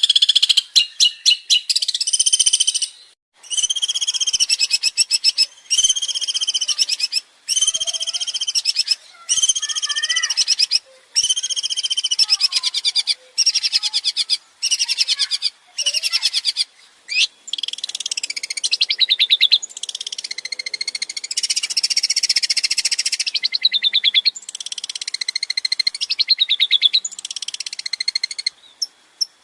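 Long-tailed shrike (cendet) singing a loud, varied song. It is a string of short phrases of fast, buzzy rattling notes, roughly one phrase a second with brief gaps. Near the end the phrases run together into a longer jumble of varied notes.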